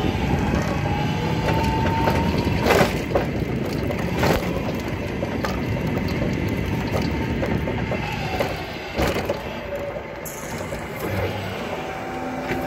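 Battery-electric BT reach truck driving: the drive motor's whine rises as it speeds up and falls again as it slows, over a steady rumble of the wheels on the floor, with a few sharp knocks.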